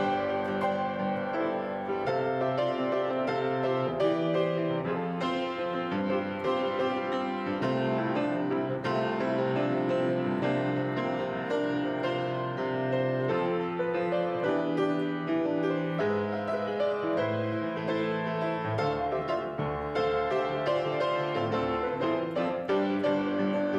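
Grand piano played solo: a continuous stream of notes and chords with no pauses.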